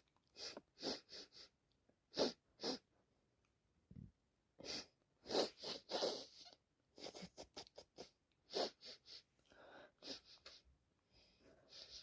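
A person with a heavy cold sneezing over and over: a string of short, breathy bursts in quick succession, the loudest about two seconds in and again around five to six seconds in.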